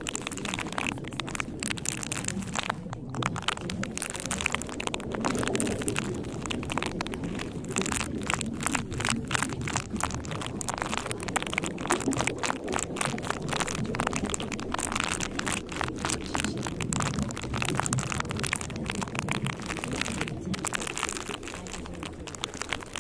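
Steady rain-like noise, thick with small crackles, over a muffled low murmur, with no clear break or change.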